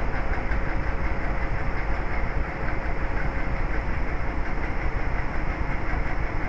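Steady low background rumble with a faint constant hum.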